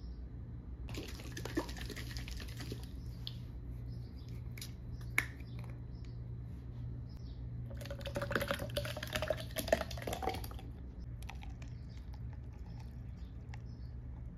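Milk poured from a plastic bottle into a plastic cup of coffee for about three seconds, the pour's pitch rising as the cup fills. Earlier, about a second in, a plastic bottle cap is twisted with a few clicks, and there are a couple of single light taps.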